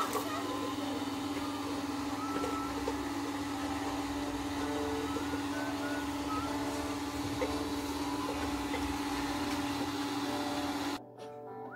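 Steady motor hum with short faint chirps over it. It cuts suddenly to strummed guitar music near the end.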